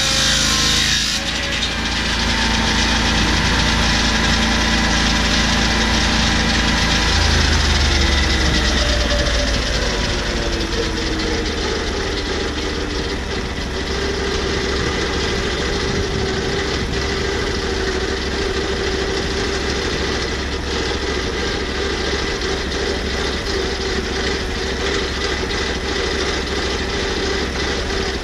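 Lucas swing-blade portable sawmill: the blade comes out of the cut about a second in, the engine keeps running at speed, then slows over several seconds from about seven seconds in and settles to a steady idle.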